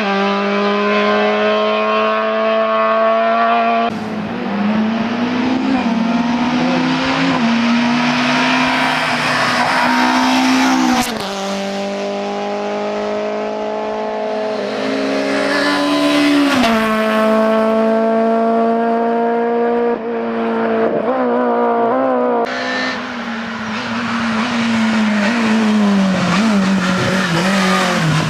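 Hillclimb race car engines at hard throttle, pitch climbing through each gear and dropping sharply at every upshift. Several passes follow one another, with abrupt changes about 4, 11, 20 and 22 seconds in.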